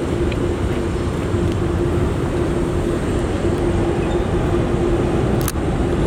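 Steady noise of trucks and traffic, with a steady hum running under it. A single sharp click about five and a half seconds in.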